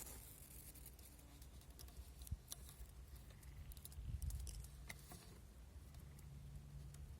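Faint rustling and scattered small clicks over a low rumble.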